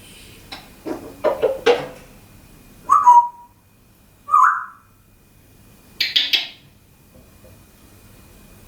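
African grey parrot making sounds: a few short clicks, then two short whistles about a second and a half apart, the first falling away at the end, then a brief hiss.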